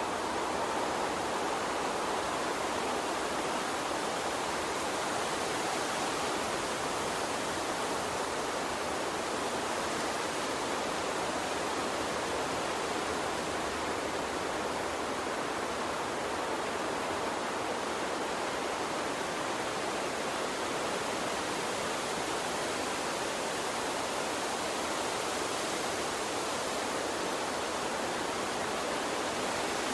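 A water stream running with a steady, even rushing sound that does not change.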